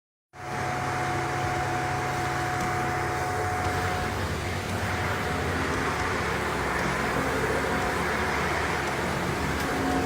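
Shark NZ801UKT upright vacuum cleaner running: a steady, continuous whir with a faint hum in it. The sound shifts slightly about four and a half seconds in.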